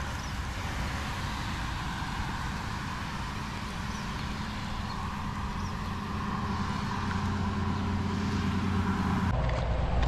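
Steady rushing outdoor noise with a low hum underneath. About nine seconds in it changes abruptly, and a few sharp clicks follow.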